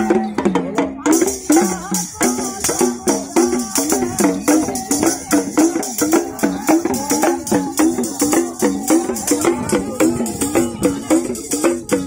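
A folk devotional song (goth) sung to the steady, rapid beat of a dhak, a local folk drum, with the melody repeating in short phrases over the strokes.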